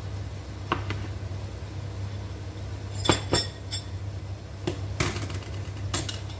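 A glass mixing bowl and dishes are set down and knocked on a tiled counter, with clinks of metal spoons: about six short knocks, the loudest about three seconds in. A steady low hum runs underneath.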